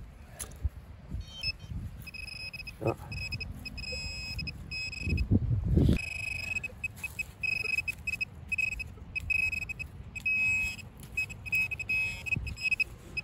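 Metal detector signalling a buried target with a high beep that switches on and off repeatedly, in short and longer pulses. A few dull thuds come about 3 and 5 to 6 seconds in.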